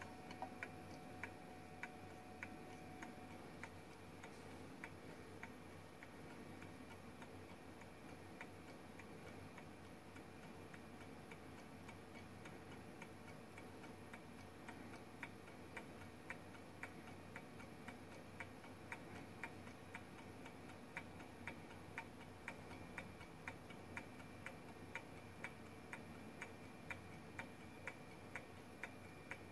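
Small coffee-cup gamma Stirling engine running on hot water, its mechanism giving a light, regular tick, roughly one to two clicks a second. The ticking fades somewhat in the middle and grows clearer again later.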